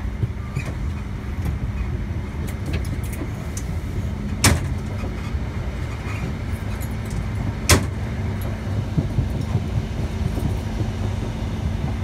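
Interior of a moving High Speed Train coach: a steady low running rumble with a steady hum, broken by two sharp clacks about three seconds apart near the middle.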